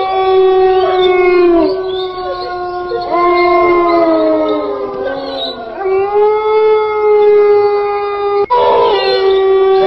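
Several animals howling together: long, drawn-out, overlapping howls that slide down in pitch at their ends. About eight and a half seconds in, the sound cuts off abruptly and starts again. It is a howling track dubbed onto the footage, which some listeners take for a woman's crying.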